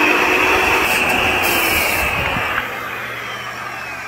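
A power tool's electric motor runs with a loud, steady high whine that sags slightly in pitch. About two and a half seconds in it is switched off and winds down, its pitch falling.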